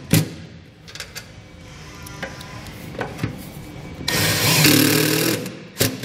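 Cordless impact driver hammering self-tapping screws into the sheet-steel truck bed: a short burst at the start, a loud run of about a second later on, and a brief burst near the end.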